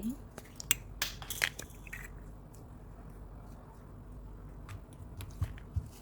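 Slime being mixed, with a cluster of sharp clicks and crackles about a second in, then a few quieter clicks near the end.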